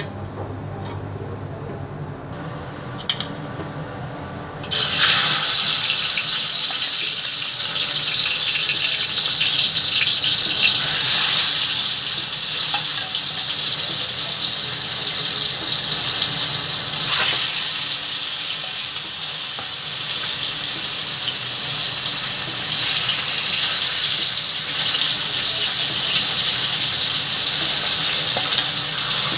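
Fish frying in hot oil. A loud, steady sizzle starts suddenly about five seconds in, after a quieter stretch with a single click.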